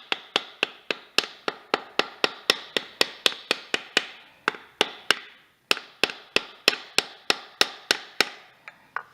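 Hammer tapping steadily, about three blows a second, driving a new torque converter (pump) seal into a Porsche 987 Boxster's Tiptronic transmission case. The tapping pauses briefly about five seconds in and stops near the end.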